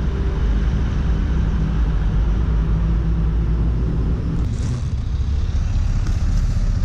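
Motorcycle engine running steadily on the road, a low hum under wind and road noise, with brief hissy rushes of wind in the second half.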